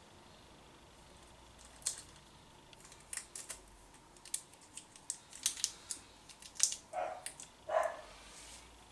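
A run of irregular sharp clicks and taps, growing busier over several seconds, with two short whimpers from a dog near the end.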